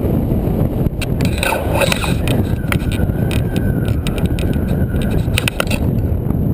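Wind rushing over an action camera's microphone in paragliding flight, a loud steady rumble. From about a second in until near the end, a rapid run of clicks and rattles sounds over it.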